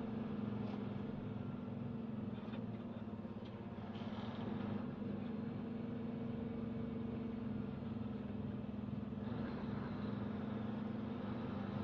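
Tanker truck's engine running steadily at highway speed, heard from inside the cab: a steady low drone over road noise.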